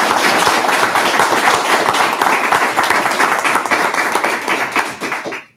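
Audience applauding: dense, steady clapping that dies away quickly near the end.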